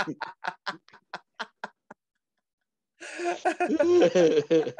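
People laughing: a run of rhythmic 'ha-ha' pulses that trails off, about a second of dead silence, then loud laughter again near the end.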